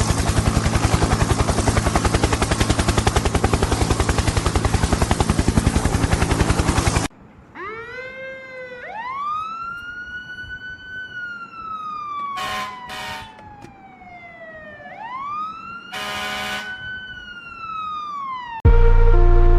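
Emergency-vehicle siren wailing, rising quickly and then falling slowly, twice over, with two short horn blasts during it. Before it comes a loud, fast, even fluttering noise that stops abruptly. Music starts near the end.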